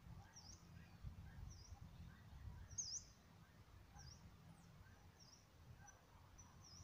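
Faint short high bird calls, each dipping then rising in pitch, repeated about once a second; the call just under three seconds in is the loudest. A low steady rumble lies beneath.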